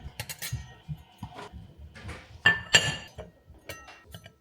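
Glassware clinking: scattered light knocks, then two ringing clinks close together about two and a half seconds in.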